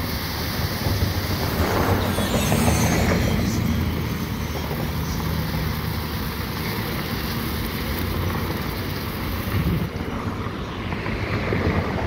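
Small ground fountain firework spraying sparks with a steady hiss, strongest in the first few seconds, then stopping about two seconds before the end. A low rumble runs underneath.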